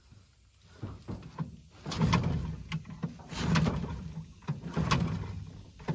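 Recoil starter of a 1997 Johnson 6 HP two-stroke outboard pulled three times, about a second and a half apart, the engine turning over on each pull without catching.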